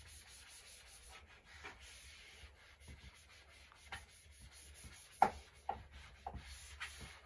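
Chalk scratching and tapping on a chalkboard while numbers are written, with a few sharper taps in the last couple of seconds.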